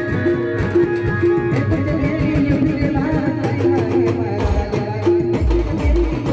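Rodali band music: an electronic keyboard, which the players call a 'piano', plays a tune over pounding drums and percussion. The deep bass beat drops out from about a second and a half in until about four and a half seconds in, while the keyboard plays gliding, bending notes.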